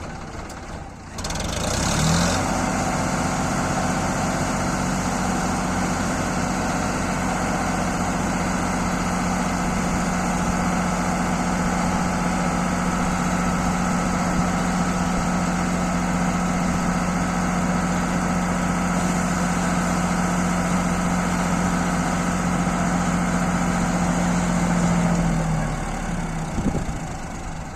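JCB 3DX backhoe loader's diesel engine speeds up about two seconds in and holds a steady high pitch, then drops back near the end.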